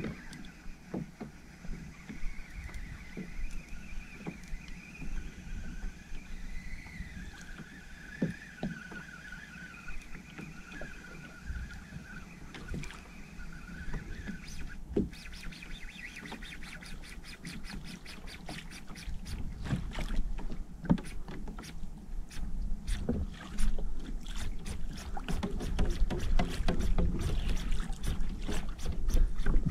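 Overhead fishing reel being worked on a kayak, with sea water washing against the hull. From about halfway, a fast run of clicks from the reel starts and grows denser and louder toward the end. A faint wavering whistle runs through the first half.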